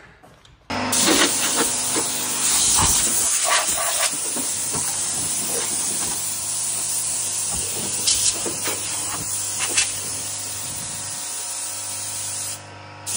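Compressed-air blow gun hissing steadily as it blows dust out of a bare car floor pan. It starts abruptly, is let off briefly near the end, then fires again.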